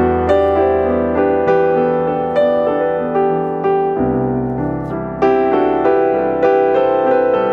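Background piano music, a gentle melody of steady notes over held bass notes.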